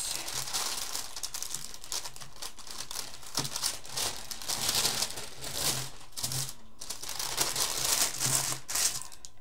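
Thin white paper wrapping crinkling and rustling as it is handled, unfolded and lifted off a stretched canvas, with louder rustles about halfway through and again near the end.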